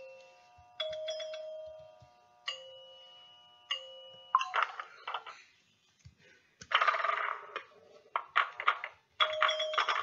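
Outro sound effects with bell-like chime tones: four separate strikes, each ringing and fading away, then a few irregular bursts of clattering noise, and about nine seconds in a dense run of overlapping ringing tones.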